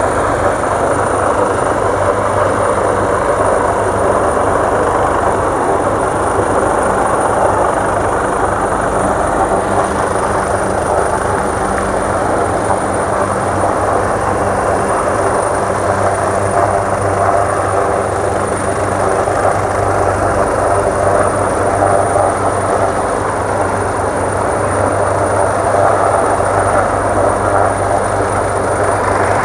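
An engine running steadily and loudly, with a thin high whine above it that holds the same pitch.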